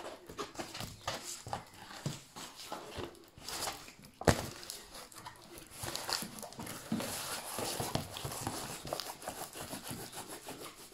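Rustling and crinkling of a diamond painting canvas and its plastic protective film as it is handled and rolled up, with one sharp knock about four seconds in.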